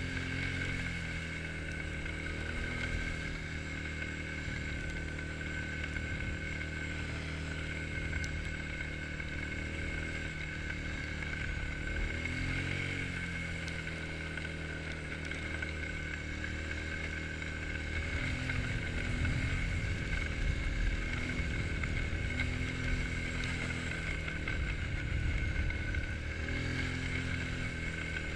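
Quad bike (ATV) engine running while riding over snowy ground, its pitch rising and falling with the throttle, a little louder and rougher in the last third. A steady high whine runs over it throughout.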